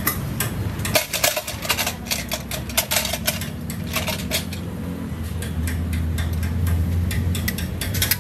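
Soaked rice poured from a metal bowl into a large pot of boiling broth: a dense rattle and patter of grains with clinks of the bowl for the first few seconds, thinning out later. A steady low rumble runs underneath and grows louder in the second half.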